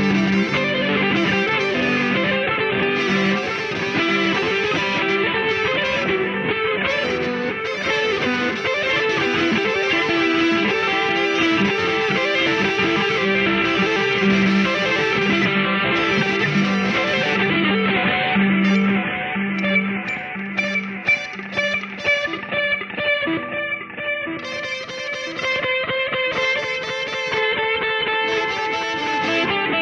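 Electric guitar music played through effects with some distortion, sustained notes over a steady low note, turning choppier for a few seconds past the middle.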